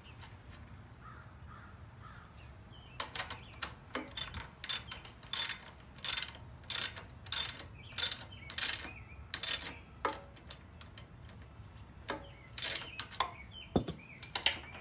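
Socket ratchet wrench clicking in short repeated strokes, about two to three a second, as a grille mounting bolt on a garden tractor is turned. It pauses for a couple of seconds and then resumes near the end.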